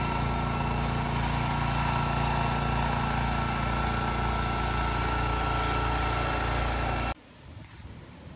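A small engine running steadily, with a low, even hum and a thin steady whine above it. It cuts off suddenly about seven seconds in.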